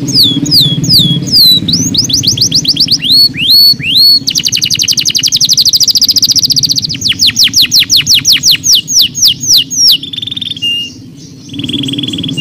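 Domestic canary singing a fast song: rapid runs of repeated falling whistles, a few swooping notes, a long very fast rolling trill, then a couple of held steady whistles near the end.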